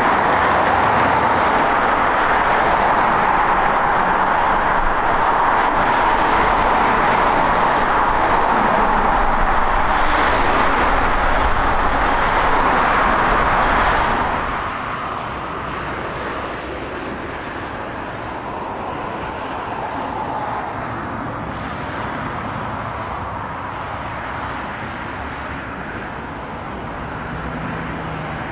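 Steady outdoor roar of vehicle and aircraft engine noise at an airfield. It drops suddenly to a quieter, even rumble about halfway through.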